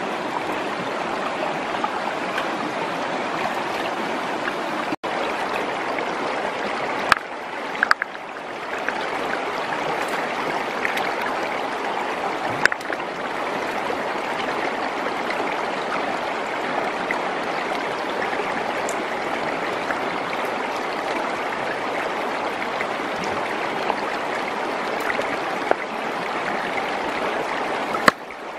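Shallow rocky stream running steadily, with a few brief sharp clicks scattered through it.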